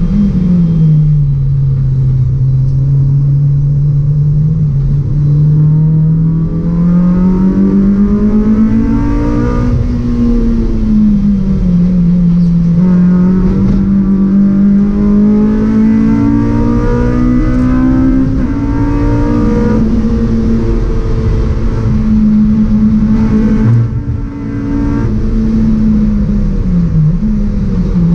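Honda Civic Type R EP3 race car's four-cylinder engine heard from inside the cabin under hard racing. The engine note climbs and falls with throttle and gear changes, with a short lift about four seconds before the end.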